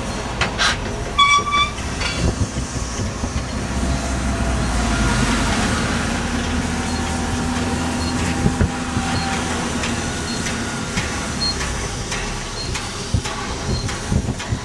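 A steam-hauled passenger train with a Prussian P8 class locomotive rolls steadily past, its coaches' wheels running on the rails with a continuous rumble and hiss. A brief high tone comes about a second in. Near the end, clicks from the rail joints come in quick succession as the locomotive comes by.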